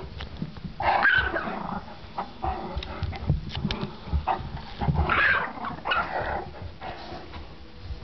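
A Yorkie and a Great Dane play-fighting: bursts of growling and barking, loudest about a second in and again around five seconds in. Short thumps and scuffles run between the bursts.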